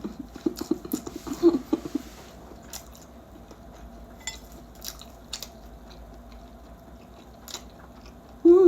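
A person chewing a mouthful of rice and stir-fried seaweed close to the microphone: soft wet mouth clicks and chewing. A muffled voiced hum runs through the first two seconds, and a short loud 'mm' comes at the very end.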